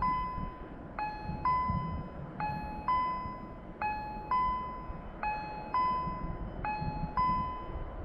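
Electronic level-crossing warning bell sounding a repeated two-tone ding-dong, one pair about every second and a half, warning of an approaching train. A low rumble lies underneath.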